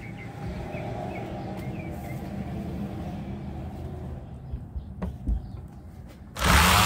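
Low background rumble with a few faint bird chirps, then, about six seconds in, an electric sander switches on and spins up to a loud, steady whine for sanding a wooden board.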